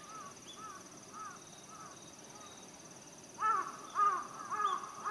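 A bird calling a run of short, cawing calls about every half second, faint at first and much louder from about three and a half seconds in, over a steady high insect trill.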